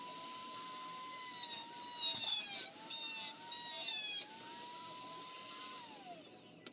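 Dremel rotary tool running at high speed with a steady whine, biting into the blaster's plastic shell in three short grinding bursts. Near the end it is switched off and its whine falls in pitch as it spins down.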